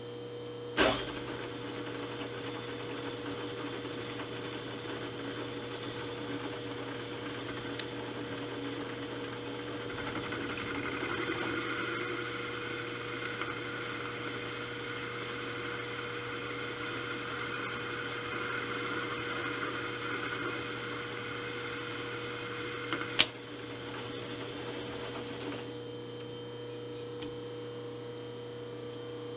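Milling machine with an R8 boring head running with a steady hum. From about a third of the way in to about three-quarters through, a harsher hissing noise is added as the boring bar takes a heavy cut. A sharp click comes about a second in, and a louder one when the cutting noise stops.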